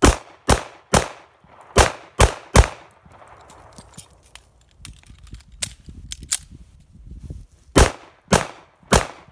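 Semi-automatic pistol fired one-handed at a quick pace: six shots in under three seconds with the strong hand, then a reload with a few light clicks of magazine and slide. Near the end come three more shots with the weak hand, about two a second.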